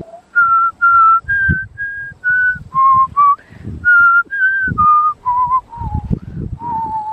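A person whistling a tune: a run of short, clear notes that move up and down and step lower overall, ending on a longer held note. Gusts of wind rumble on the microphone underneath.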